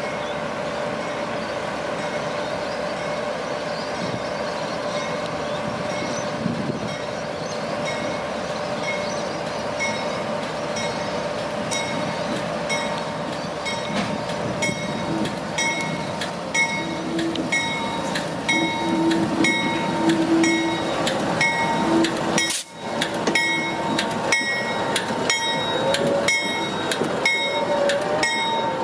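A train running by, with a steady engine drone. Wheels click over rail joints, and the clicks come closer together through the second half. There is a brief dropout about 22 seconds in.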